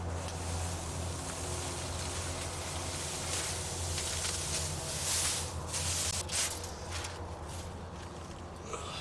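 Compacted garbage being pulled and scraped out of a trash compactor by hand: several bursts of rustling and scraping about three to seven seconds in, over a steady low hum.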